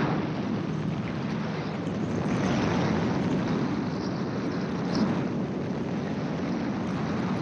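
Gyroplane in cruise flight: a steady low engine and rotor drone, with wind rushing across the open cockpit and swelling in gusts a few times.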